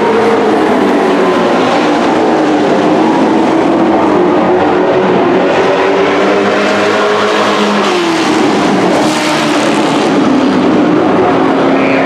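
Dirt-track race trucks running laps on the oval, their engines droning loudly with pitch rising and falling as they go through the turns.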